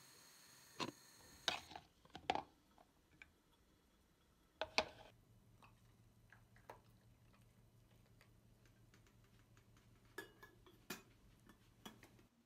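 Scattered light clinks and knocks of dishes and utensils, seven or so, separated by quiet stretches over a faint steady hum.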